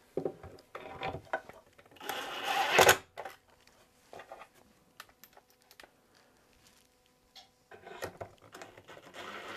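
Cordless impact driver driving wood screws into a maple table support, running in short bursts. The longest burst comes about two seconds in and stops abruptly, and another starts near the end.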